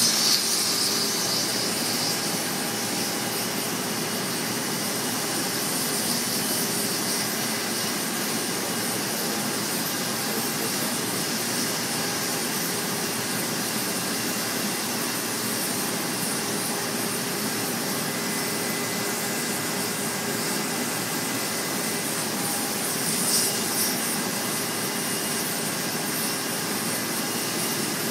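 Oxy-fuel cutting torch cutting through steel plate: a continuous, steady hiss of the flame and cutting-oxygen jet, briefly louder once late on.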